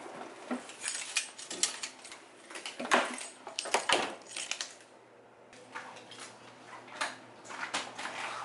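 Clinks, knocks and rattles of items being handled at an open refrigerator, with a short lull about five seconds in.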